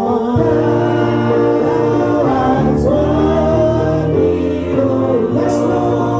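A congregation singing a gospel praise-and-worship song together, many voices holding long notes and moving between them.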